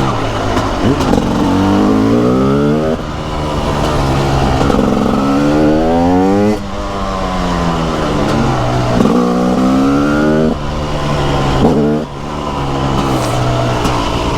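TM SMR 300's single-cylinder two-stroke engine revving under load. Its pitch climbs and then falls back about four times as the throttle is opened and closed.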